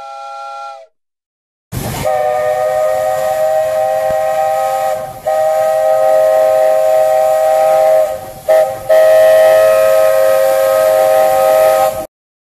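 Steam chime whistle of the Walt Disney World Railroad locomotive Roger E. Broggie, several tones sounding together as one chord over a hiss of steam. A short toot in the first second, then a long blast from about two seconds in, with a brief dip midway and a quick stutter about two-thirds through.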